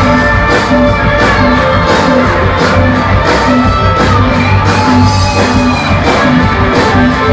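Live band playing loud rock music with a steady beat.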